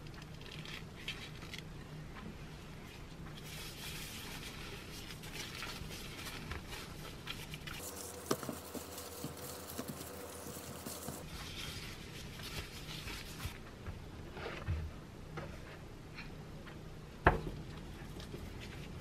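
Gloved hands working hot, sticky glutinous rice-cake dough on a starch-dusted wooden board: soft squishes, pats and scrapes as the dough is stretched and pressed into the starch. One sharp knock near the end.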